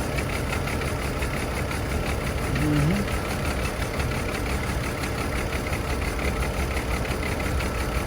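Chevrolet Trailblazer engine idling steadily while it misfires in cylinders 3 and 5.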